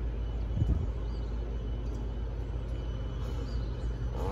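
A vehicle engine running with a steady low rumble, and a brief thump just over half a second in.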